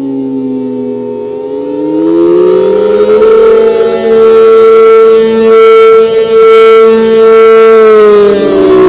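ACA Allertor 125 rotating electromechanical siren, its 8- and 12-port rotors sounding a two-tone chord on a full attack signal. The pitch climbs over the first few seconds, holds steady, then starts to fall near the end. The loudness swells and dips as the rotating horn sweeps past.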